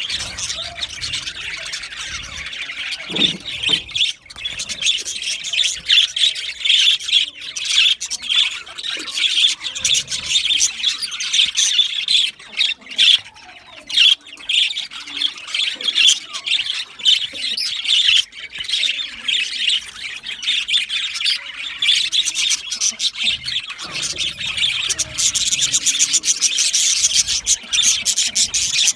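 A flock of budgerigars chirping and chattering continuously, a dense stream of rapid high warbles and squawks with a short lull about halfway through.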